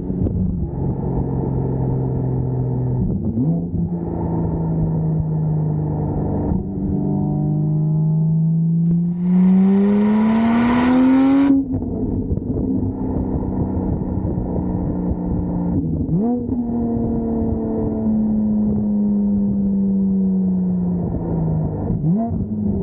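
Porsche 718 Spyder's 4.0-litre flat-six under way: the revs climb to a loud, bright pull about ten seconds in and drop sharply at a gear change. Later the pitch sinks as the car slows, with short throttle blips on the downshifts.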